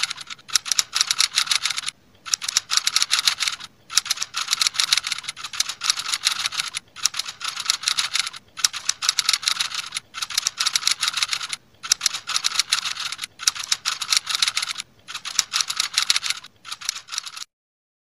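Typing sound effect: rapid keyboard clicks in bursts of a second or two with short pauses between them, stopping shortly before the end.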